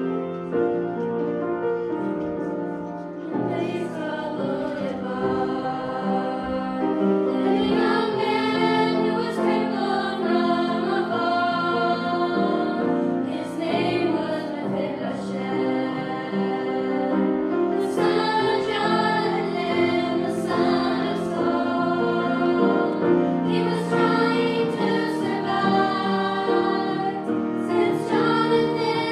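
Mixed choir of young voices singing a gospel song together, accompanied by a grand piano.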